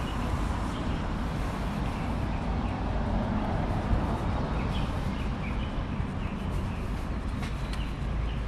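Steady city street background, mostly a low traffic rumble, with a few faint high chirps around the middle.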